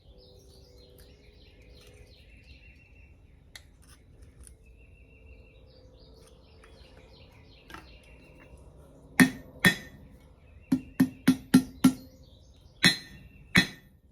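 Faint bird chirping, then about nine sharp, ringing hammer blows on steel over the anvil, starting about nine seconds in, as the small pendant's end is bent over into a loop.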